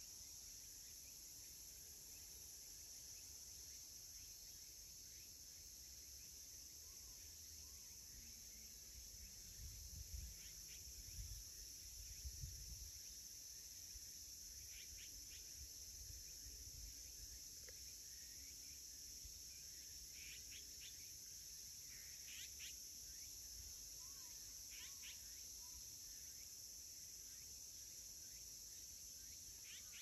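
Steady high-pitched drone of insects, with faint short bird calls scattered through it. There are a few soft low thumps about ten to thirteen seconds in.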